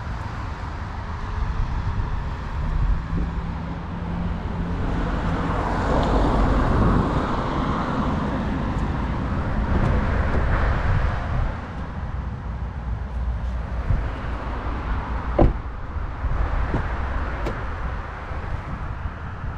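Toyota Camry XV80 2.5-litre hybrid on the move: a steady low rumble of road and drive noise that swells louder for several seconds in the middle. A single sharp knock comes near the end.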